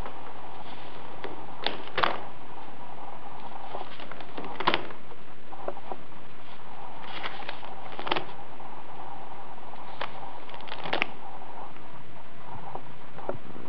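Dry paper of an old book's pages rustling and crackling in a few short bursts as the book is handled, over a steady background hiss.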